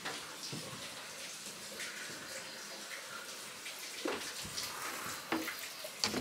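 Steady running water: hot spring water flowing into a bath behind the door. A few soft knocks come through it about four and five seconds in.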